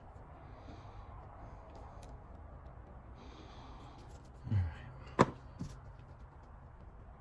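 Metal tweezers set down on a plastic workbench: a soft knock about four and a half seconds in, then a sharp click and a lighter one, over a steady low hum.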